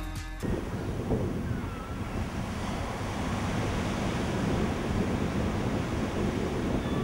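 Seaside ambience: a steady rush of surf breaking on a sandy beach, with wind on the microphone. A faint short whistle is heard about two seconds in.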